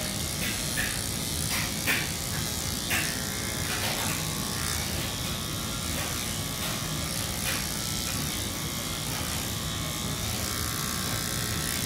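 Electric dog grooming clippers running with a steady buzz, with a few short clicks over it.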